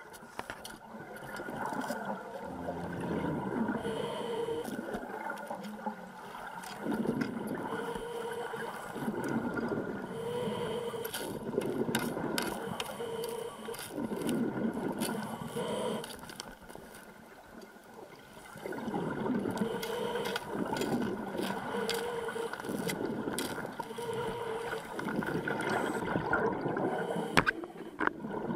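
Underwater sound of a scuba diver breathing through a regulator: rushing breaths and gurgling exhaled bubbles in a regular rhythm every couple of seconds, with a pause of a couple of seconds past the middle.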